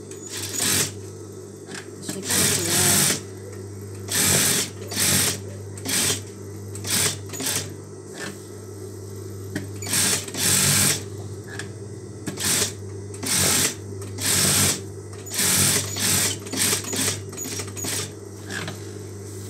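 Electric sewing machine stitching in short runs, most under a second, about one a second, starting and stopping over a steady low hum.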